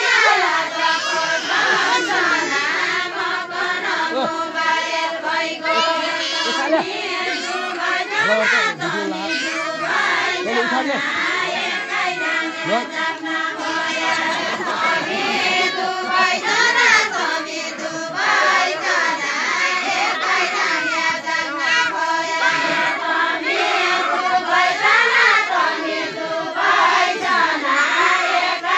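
A group of women singing a Deuda folk song together in unison, the melody rising and falling in repeating phrases.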